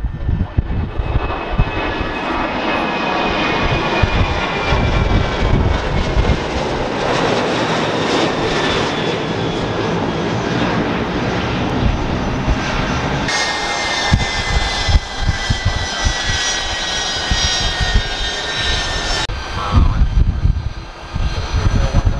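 Delta Boeing 737 jet on take-off and climb-out: its CFM56 turbofans give a steady jet roar with a high whine over it.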